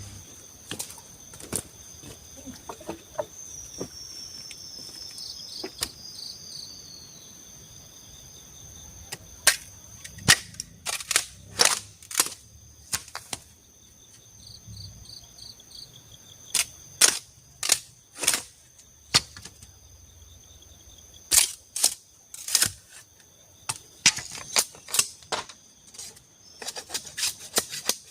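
Sharp, irregular strikes on bamboo as it is worked into a shelter door, coming in quick runs from about a third of the way in. A steady, high chirring of forest insects runs underneath.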